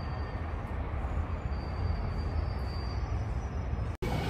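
Steady low rumble under a wash of outdoor noise, with a faint thin high whine now and then. It cuts out abruptly about four seconds in.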